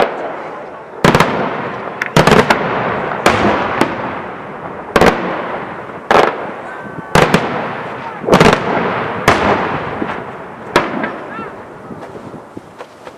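Daytime aerial fireworks shells bursting overhead in a loud series of sharp bangs, about a dozen, some coming in quick pairs. Each bang trails off in a long rolling echo.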